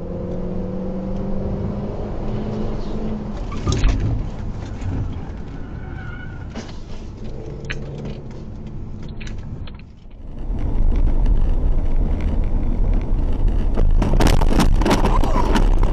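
A car's engine running with road noise, heard through a dashcam inside the cabin, with a sharp knock about four seconds in. After a cut comes louder road noise, and near the end a rapid run of loud bangs and crunches from a road collision.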